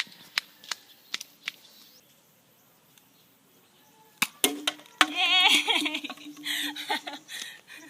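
Sharp clicks and knocks from a toy mini Nerf gun being fired and its darts striking plastic bottles: a quick run of light clicks, then two louder knocks a few seconds later. Right after the knocks comes a long, wavering, high voice, like a drawn-out cheer or squeal.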